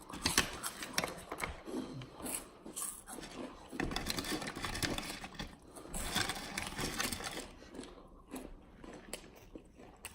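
People crunching and chewing Takis and hot fries in a quick eating race, with irregular crackly clicks and scrapes, loudest in stretches near the start and again around the middle.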